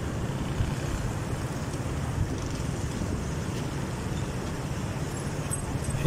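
Steady low rumble of street traffic and vehicle engines heard from a moving vehicle on a city road, with auto-rickshaws and motorcycles passing close by.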